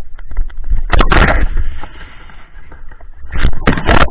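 Loud bumps and scraping on an action camera's microphone as the camera is jostled and handled close to the snow, in three bouts: a single knock at the start, a longer burst about a second in, and another cluster near the end, over a low rumble.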